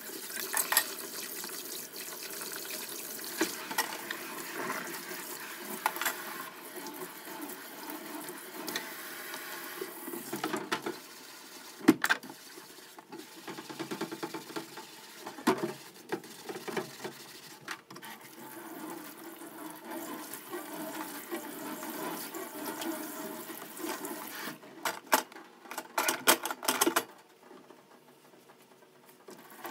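Kitchen tap running onto dishes in a stainless-steel sink as they are washed by hand, with occasional clinks. About ten seconds in the water stops and the sink basin is wiped with a sponge, with a quick run of sharp knocks near the end.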